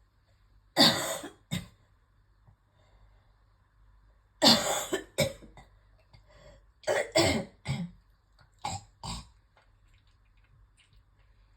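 A person coughing and clearing the throat in a run of about eight short bursts, the two loudest about a second in and about four and a half seconds in: a coughing fit thick with phlegm.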